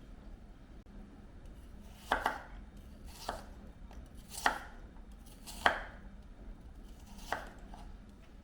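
Kitchen knife chopping on a cutting board: five separate strokes about a second apart, the first about two seconds in.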